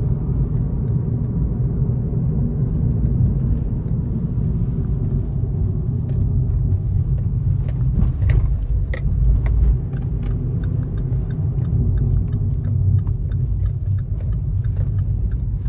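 Road and engine noise heard inside the cabin of a moving car: a steady low rumble.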